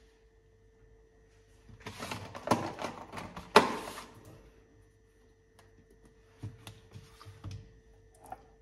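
Crackling and clicking of a plastic strawberry punnet being handled and closed, with one sharp snap in the middle. Near the end come a few lighter clicks and taps as containers are moved on the counter.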